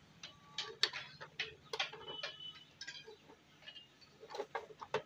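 Plastic headlight visor of a Hero Glamour motorcycle being handled and worked off its mounts: a run of irregular sharp plastic clicks and knocks, loudest about a second in and clustering again near the end.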